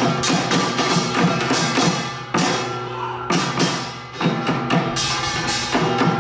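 Samulnori percussion ensemble playing fast: the kkwaenggari small gong clangs over janggu hourglass-drum and buk barrel-drum beats, with ringing gong tones underneath. The playing eases off briefly about two seconds in and again around four seconds, then surges back to full.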